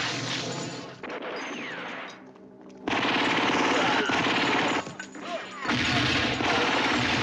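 Movie shootout sound: dense, rapid automatic gunfire mixed with gunshots. It eases off about two seconds in, comes back loud a second later, and drops briefly around five seconds before picking up again.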